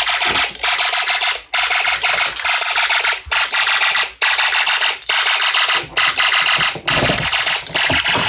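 Snap Circuits fire alarm sounding: a loud electronic alarm tone broken by short gaps about once a second.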